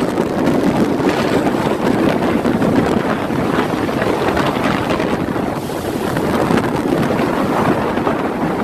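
Hurricane storm surge: floodwater rushing and breaking in waves through a street, with strong wind buffeting the microphone. A loud, steady rush of noise throughout.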